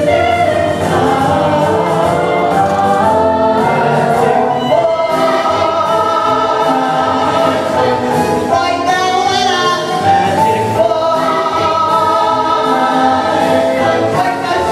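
A musical-theatre ensemble of mixed voices singing together over instrumental accompaniment, holding long notes in the second half.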